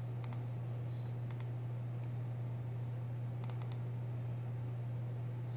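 Computer mouse clicking a few times in small groups, over a steady low hum.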